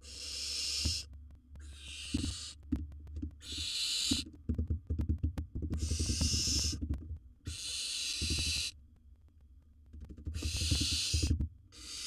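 Barn owl hissing calls, about six harsh breathy hisses of roughly a second each, coming one to two seconds apart. Between and under them come low knocks and scuffling from the birds moving in the wooden nest box.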